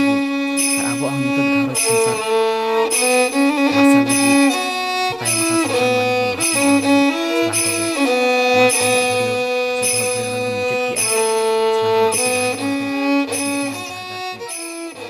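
Instrumental background music: a held, sliding melody over a steady beat, fading out near the end.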